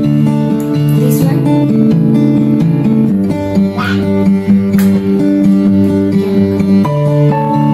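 Background music led by a strummed acoustic guitar, with a steady run of changing chords.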